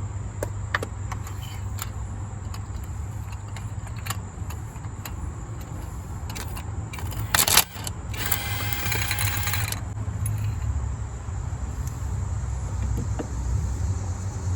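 Metal hand tools and sockets clinking in the engine bay while an ignition coil and spark plug are removed: scattered sharp clicks, then a louder clatter lasting a couple of seconds about halfway through. A steady low hum runs underneath.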